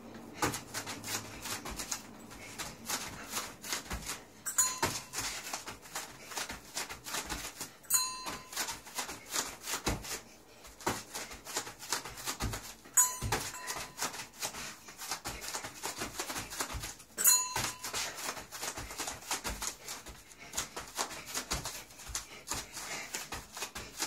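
A small hanging brass bell rung four times, each a short ding, amid soft irregular thumps of bare feet jumping and landing on a foam play mat.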